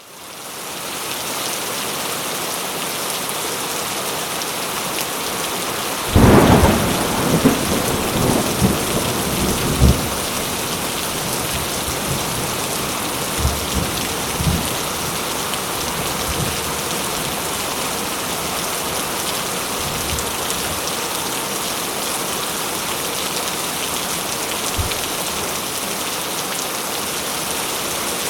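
Steady heavy rainfall hissing. About six seconds in comes a thunderclap that rumbles and crackles for several seconds, followed by fainter distant rumbles later on.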